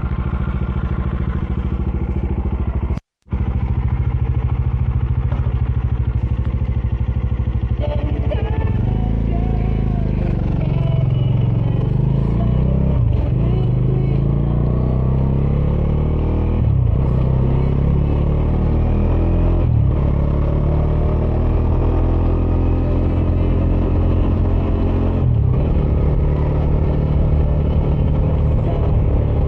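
Bajaj Dominar 400's single-cylinder engine running through its stock dual exhaust while riding. Its note rises and falls repeatedly from about a third of the way in, as the bike speeds up and changes gear. The sound cuts out for a split second about three seconds in.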